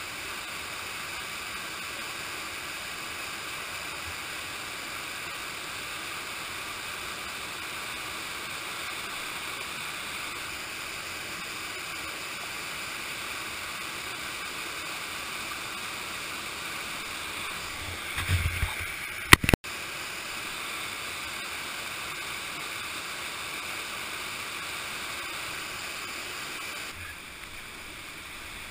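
Steady rush of whitewater pouring over a river weir. About two-thirds of the way through come a few low bumps and then a sharp knock, the loudest sound; near the end the rushing drops a little quieter.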